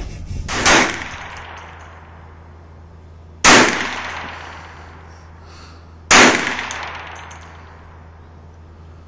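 Three pistol shots, each a sharp bang followed by an echo that fades over about a second, the last two about two and a half seconds apart.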